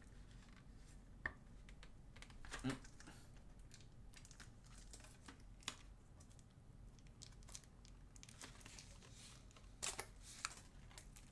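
A sticker seal being peeled off a mechanical keyboard: faint, on-and-off crinkling and tearing with a few light clicks and knocks as the keyboard is handled.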